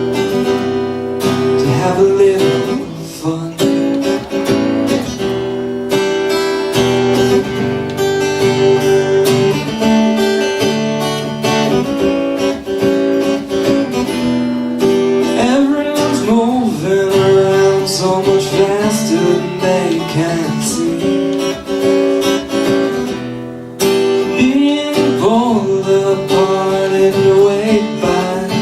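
Acoustic guitar strummed and picked through an instrumental passage of a song, with steady chords ringing over the whole stretch.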